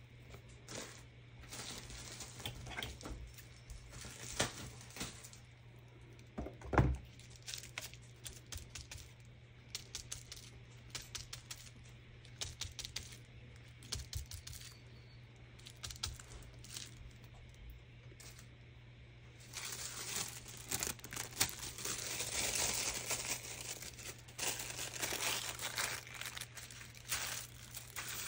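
Rummaging through craft supplies on a table: paper and plastic rustling and crinkling with scattered clicks and taps, and one louder knock about seven seconds in. The rustling and scraping turns denser and louder in the last eight seconds, over a faint steady low hum.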